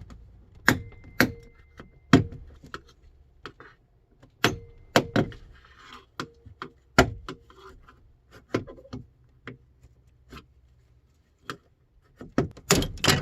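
Door trim panel being pried off a 1999 Chevrolet Suburban's rear door: its plastic retaining clips snap and the panel knocks against the door. A series of sharp, irregular snaps and knocks, with a quick cluster near the end.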